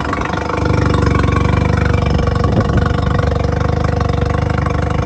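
Honda 20 hp four-stroke outboard motor running steadily just after starting, out of the water on flushing muffs. No cooling water comes out of the back while it runs.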